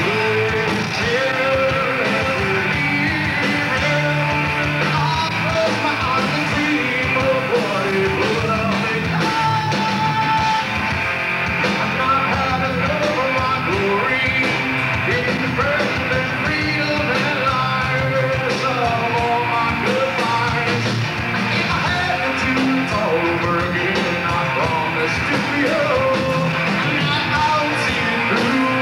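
A heavy rock band playing live: electric guitars, bass guitar and drums, with a vocalist singing and yelling into a microphone.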